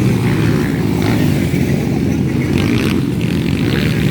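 Motocross bikes of the 200 cc class running on the track, engines droning and revving as they race past.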